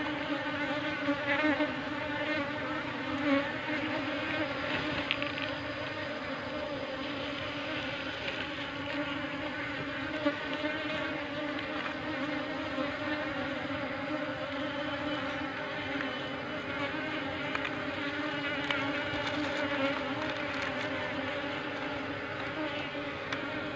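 A small cluster of queenless honeybees buzzing close up in a steady, dense hum as they are coaxed from a rock crevice into a plastic jar.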